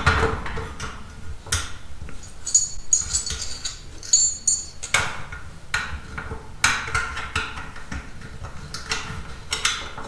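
Handling noise from a three-wire range power cord being fed up through the hole in a sheet-metal strain-relief bracket: irregular light clicks, knocks and rubbing. About three seconds in, the cord's metal ring terminals give a brief clinking jingle.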